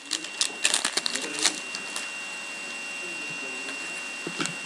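Foil trading-card pack wrapper crinkling and tearing open, a quick run of sharp crackles in the first second and a half, then a few faint clicks of cards being handled near the end.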